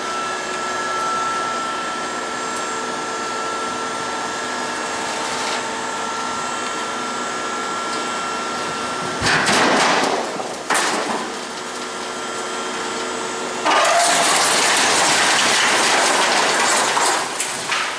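A dump trailer's hydraulic pump whines steadily as the bed tips. Then the load of rock and debris slides out with rushing, rattling noise: briefly about nine seconds in, and again at greater length from about fourteen to seventeen seconds.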